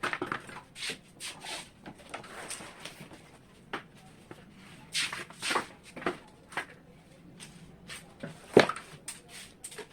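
Home-theatre packaging being handled: irregular rustling and scraping of the packing, with scattered knocks. The sharpest knock comes about eight and a half seconds in.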